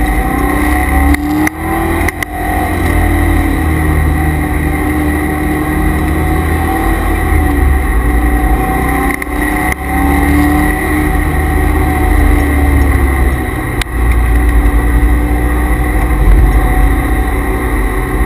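Corvette C5 Z06's V8 engine heard from inside the cabin under hard track driving, its note rising and falling, with brief breaks about two seconds in and again about fourteen seconds in. A steady whine runs underneath, which the owner puts down to the noisy transmission and differential coolers.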